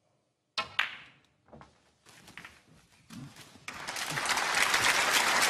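A snooker cue strikes the cue ball sharply about half a second in, followed by a few softer clicks of balls. From about three and a half seconds in, audience applause starts and builds to loud, steady clapping.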